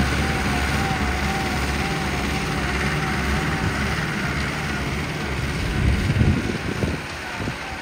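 New Holland tractor's diesel engine running, a steady low drone with a wavering whine above it. A few knocks come about six seconds in, after which it gets quieter.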